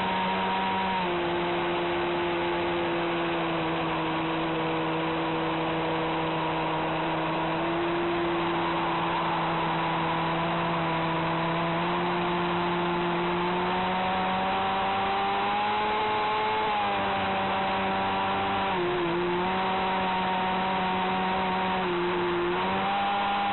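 Radio-controlled V-hull model boat running at speed, heard from on board: its motor's steady whine over the rush of water and spray from the hull. The whine rises and falls in pitch, dipping briefly twice near the end.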